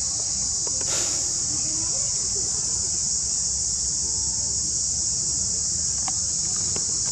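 Steady high-pitched drone of an insect chorus, with a brief sharp click or rustle about a second in and two faint ticks near the end.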